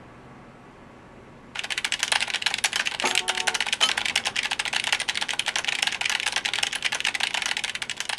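Fast, continuous typing on a computer keyboard, a dense patter of key clicks that starts about a second and a half in after a faint hum.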